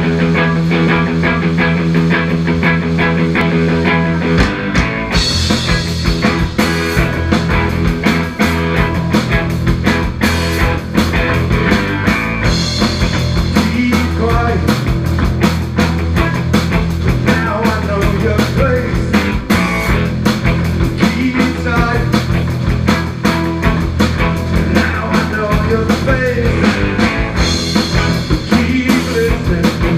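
Rock band playing live: electric guitar, bass guitar and drum kit, with a man singing lead vocals into the microphone. It opens on a held chord, and the drums and cymbals come in about four to five seconds in; the singing starts partway through.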